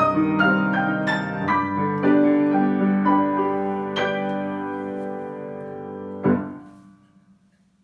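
Piano playing the closing phrases of a slow piece, its struck notes ringing into one another, then a final chord struck about six seconds in that rings out and fades to silence.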